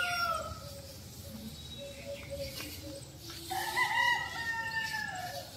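Rooster crowing twice: the end of one crow fades in the first half second, then a full crow starts about three and a half seconds in and lasts nearly two seconds.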